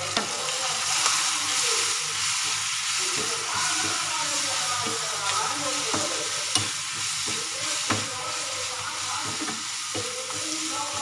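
Fenugreek leaves, green chillies and ginger-garlic paste sizzling in hot oil in a kadai while a spatula stirs them, knocking and scraping against the pan a few times.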